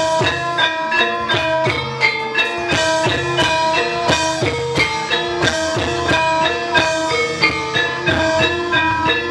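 Gamelan-style music of ringing struck metal notes played in a steady, quick beat, with a drum keeping time underneath.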